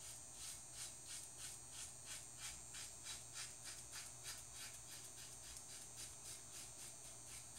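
RazoRock Teck II safety razor with a Nacet blade cutting through lathered neck stubble in quick short strokes, about three a second, faint throughout. It is a mild razor with little blade feel that still takes the stubble down.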